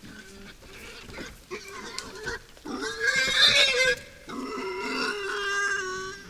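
Wild boars squealing: short sounds at first, then a loud, high squeal about three seconds in, followed by a longer, steadier squeal lasting almost two seconds.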